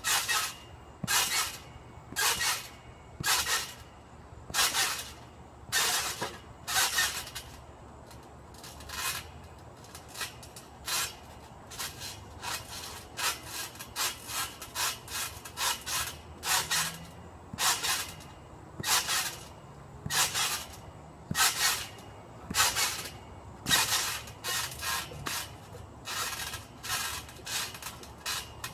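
Trampoline mat and springs sounding with each bounce: a short noisy burst roughly once a second, uneven in strength and spacing.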